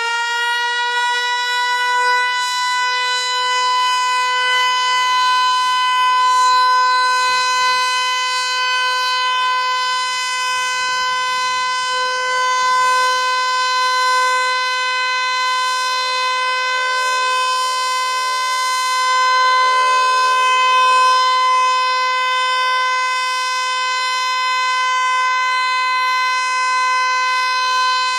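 Federal Signal Eclipse 8 electronic outdoor warning siren sounding a steady, insanely loud tone held on one pitch during a test, swelling and easing slightly in loudness.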